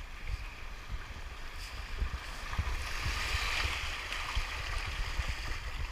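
Shallow surf washing up the beach and splashing, swelling to a rush about three seconds in and then easing, over a low rumble.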